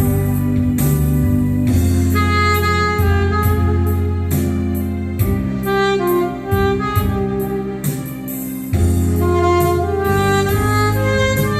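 Saxophone playing a melody of held notes over a backing track with a steady bass line and light drums.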